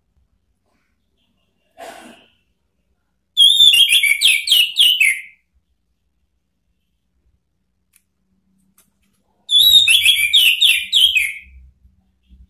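Orange-headed thrush (anis merah) singing two loud whistled phrases about six seconds apart. Each phrase is a quick run of five or six notes sliding down in pitch: the challenging song used to call out a rival.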